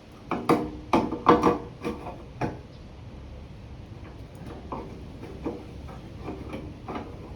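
A quick series of clunks and knocks from handling equipment during the first two and a half seconds, then a few faint scattered knocks.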